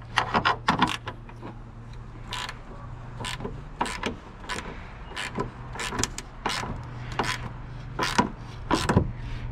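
Metal clicks and clinks of a hand wrench and vise grip working the grille's retaining nuts and studs, a string of separate sharp ticks about one to two a second. A steady low hum runs underneath.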